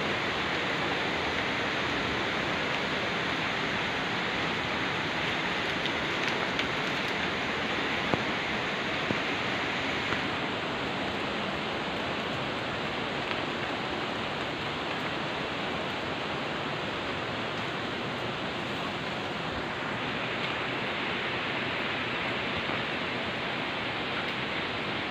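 Steady outdoor rushing noise, with a few faint ticks or knocks about a third of the way in.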